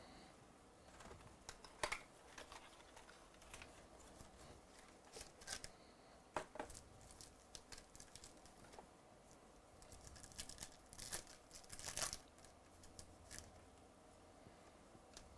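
Faint crinkling and tearing of a trading card pack's crimped wrapper being handled and opened, in scattered sharp crackles. The loudest come about two seconds in and around eleven to twelve seconds.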